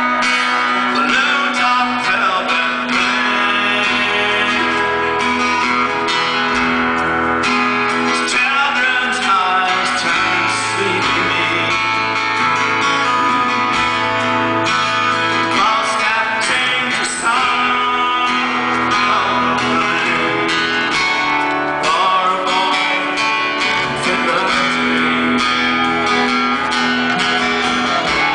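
Live rock band playing an acoustic song: a man singing over strummed acoustic guitar.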